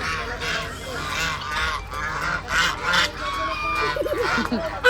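A group of farm birds calling noisily over one another, many short harsh calls in quick succession, as they crowd in wanting food.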